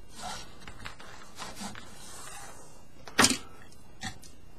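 Faint rustling of paracord being drawn through a bracelet weave by hand, with one sharp knock about three seconds in and a lighter tick shortly after.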